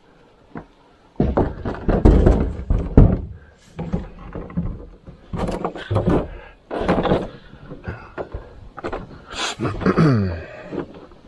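Lightweight carbon/kevlar solo canoe being hoisted onto the shoulders. From about a second in there is an uneven run of knocks, bumps and handling noise from the hull, with a short falling groan-like sound near the end.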